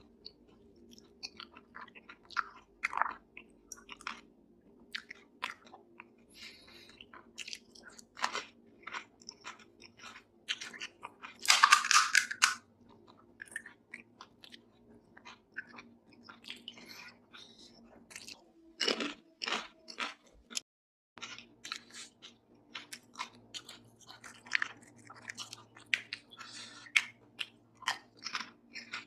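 Close-miked eating: chewing and wet mouth clicks with crisp crunches as pani puri shells are bitten. The loudest crunches come about 12 seconds in and again near 19 seconds. A low steady hum runs underneath.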